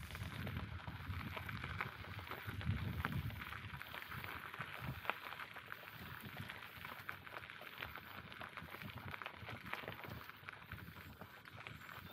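Bicycle tyres rolling over an unpaved forest path: a steady crackling crunch, with a low rumble of wind on the microphone that swells briefly a few seconds in.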